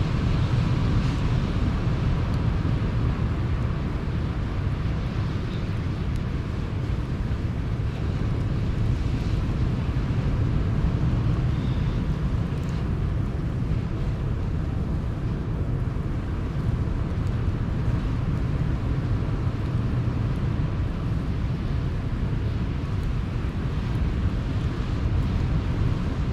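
Steady low rumble of sea surf with wind buffeting the microphone, and a few faint campfire crackles.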